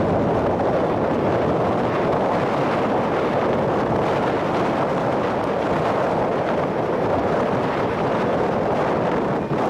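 Steady wind rushing over the microphone on board a car ferry under way, with the noise of the ship and the water beneath it.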